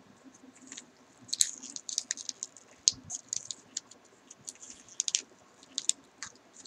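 Wrapping paper crinkling and rustling in irregular little crackles as small hands unwrap a small paper-wrapped gift.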